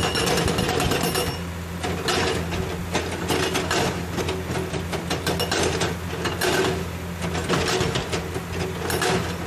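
Hydraulic rock breaker on a Komatsu PC200 excavator hammering into rock in rapid repeated blows, over the steady running of the excavator's diesel engine.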